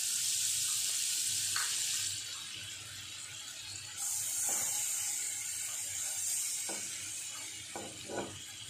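Butter sizzling as it melts and foams in a hot nonstick pan, a steady high hiss that dips for a couple of seconds near the middle. A metal spoon scrapes and taps against the pan a few times as it pushes the butter around.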